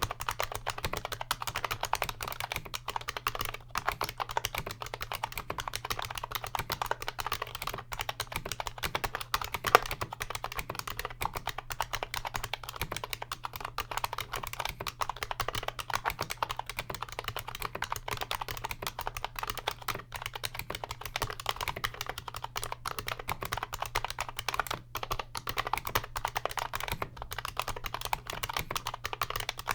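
Continuous fast typing on a 1994 IBM Model M buckling-spring keyboard, its springs brushed with silicone grease. The chunky thock of the thick PBT keycaps comes through without spring ping.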